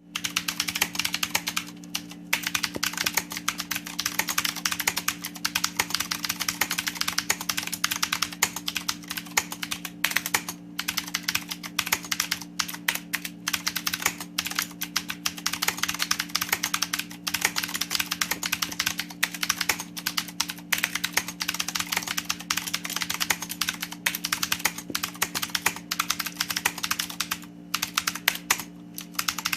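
Fast, continuous typing on a mechanical keyboard with clicky Cherry MX Blue switches under PPS keycaps, with brief pauses about 2 seconds in, about 10 seconds in and near the end.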